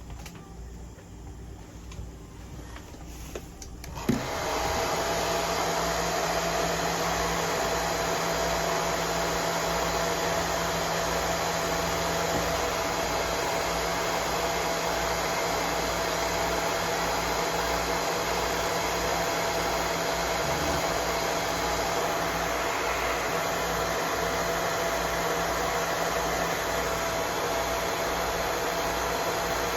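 Hair dryer switched on with a click about four seconds in, then running steadily with a constant whirring hiss.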